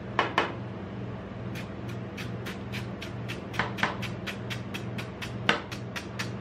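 Metal spatula chopping a chocolate-dipped wafer cone against the steel cold plate of a rolled ice cream machine. A couple of loud knocks come near the start. From about a second and a half in there is quick, even tapping at about five strikes a second, with a few louder knocks among the taps.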